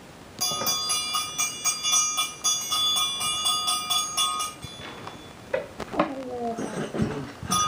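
Toy triangle rolled with its metal beater inside a corner, a fast run of ringing strikes for about four seconds. The ringing starts again near the end.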